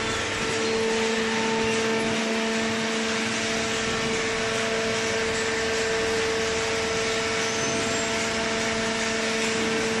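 Small hydraulic cardboard baler's power pack, an electric motor driving the hydraulic pump, running steadily: a constant hum with a whine held at one pitch.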